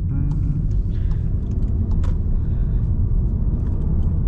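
Steady low rumble of a Mk7 Volkswagen Golf R's engine and tyres on the road, heard from inside the cabin while driving, with scattered faint ticks.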